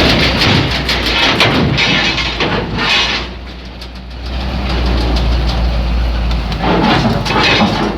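Heavy bus diesel engines running close by: a loud low rumble with clatter. It eases off about three seconds in and builds again towards the end.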